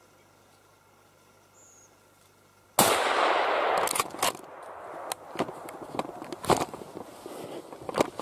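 A sudden loud burst of noise about three seconds in, holding for about a second before fading, then a run of sharp clicks and rustling.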